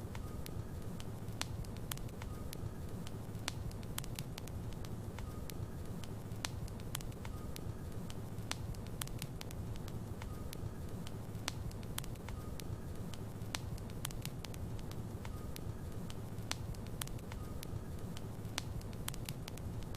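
Wood logs burning in a fireplace: a steady low rumble of the flames with frequent sharp crackles and pops.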